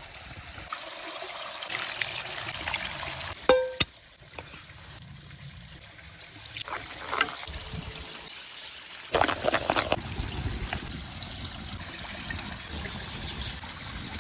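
Water trickling steadily, with a few louder splashing stretches and one sharp clink about three and a half seconds in.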